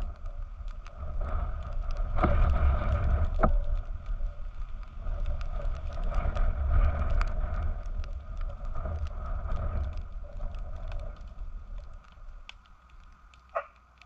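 Wind gusting on the microphone, rising and falling, with faint crackling from a burning pile of logs and branches; it eases off near the end, where one short rising squeak is heard.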